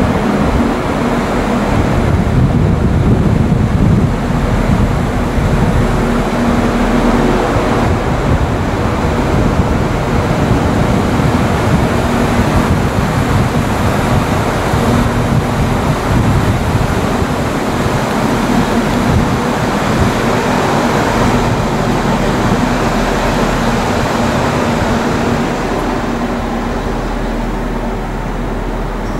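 Diesel railcar engine idling at a station: a steady low rumble with a constant hum.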